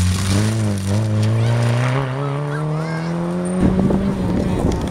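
Rally car's engine pulling hard as it passes and accelerates away along the stage, its pitch rising steadily through one gear. About three and a half seconds in, the engine note gives way to a rough crackling noise.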